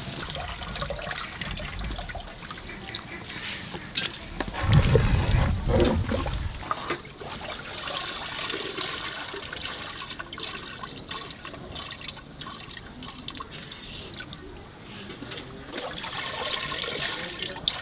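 A large pot of water bubbling at a rolling boil, with a louder low rumble for about two seconds around five seconds in.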